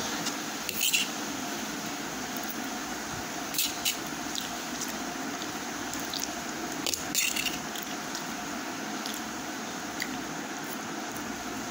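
Child eating instant noodles with a fork: wet chewing and slurping mouth sounds, with a few short sharp clicks, over a steady background hiss.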